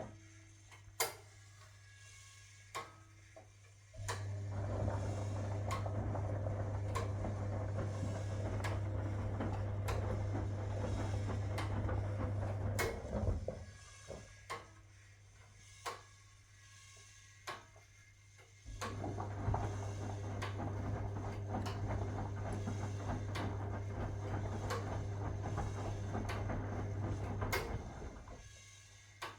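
1961 AEG Lavamat Noris washing machine tumbling its wash. The drum motor runs with a steady hum for about nine seconds, stops for about five seconds with a few sharp clicks, then starts again and runs for about nine seconds more: the stop-and-reverse rhythm of the wash action.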